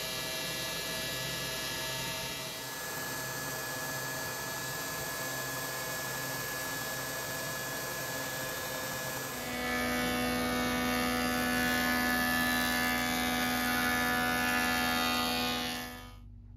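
Stationary belt sander running while curved wooden chair parts are held against its moving belt: a steady machine hum with sanding noise. Its pitch shifts a couple of times and it gets louder about nine and a half seconds in, then it drops away shortly before the end.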